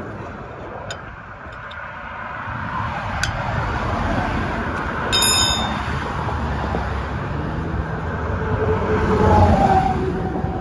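Road traffic passing by, a rumble that builds to its loudest near the end as a heavy vehicle draws close, with a brief high-pitched squeal about halfway through.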